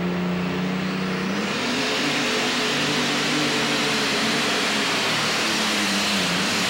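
Methanol-burning light super stock pulling tractor's turbocharged engine, steady at the start line. About a second and a half in it goes to full throttle and keeps running hard under load as it pulls down the track.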